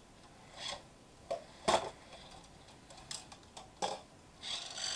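Scattered small clicks and plastic handling noises from a cheap toy RC quad bike while its on switch is sought. Near the end a steady whirring starts, the quad's small electric motor and plastic gears driving the rear wheels.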